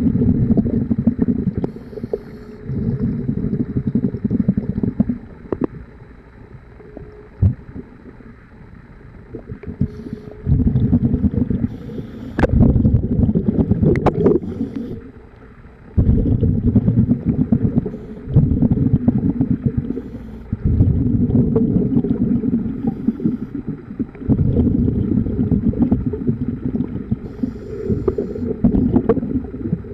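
A scuba diver's exhaled bubbles rumbling from the regulator in repeated bursts of a second or more, heard underwater, alternating with quieter stretches as the diver breathes in. A few sharp clicks stand out about halfway through.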